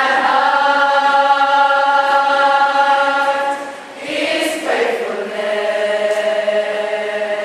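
Many voices singing together in long held notes, typical of a church hymn. The sound dips about four seconds in and a new held note begins.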